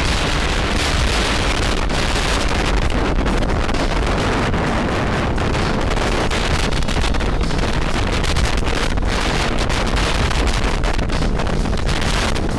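Strong wind buffeting the microphone on a sailboat under sail, a loud, steady rumble mixed with the rush of water and waves along the heeled hull.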